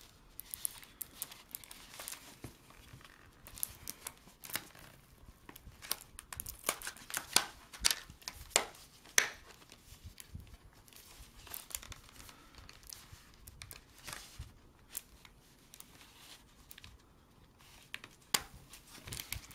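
Paperboard retail box and its clear plastic window being pried open by hand: crinkling plastic and tearing, scraping card, in irregular sharp crackles and clicks, the loudest a little past seven and nine seconds in.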